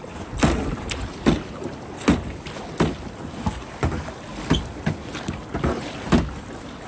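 Kayak paddle strokes in rough ocean water: a splash and knock a little more than once a second.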